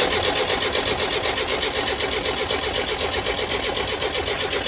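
Starter motor cranking the truck's diesel engine in a fast, even rhythm without it firing, just after the fuel filter was replaced and air bled from the fuel line.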